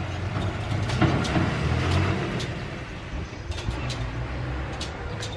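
Dump truck's diesel engine rumbling as the truck drives off down a dirt track, gradually fading, with scattered sharp clicks and rattles.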